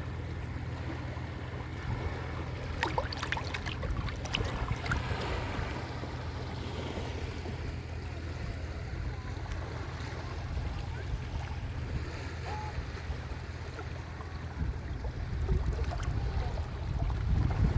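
Waves washing onto a shore with a steady low rumble, a few sharper splashes about three seconds in, and the faint voices of people playing in the water far off. The rumble swells near the end.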